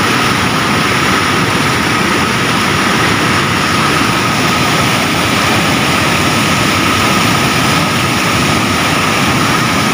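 Muddy floodwater rushing and churning over a concrete weir in a steady loud roar: a river in flood, swollen by overnight rain.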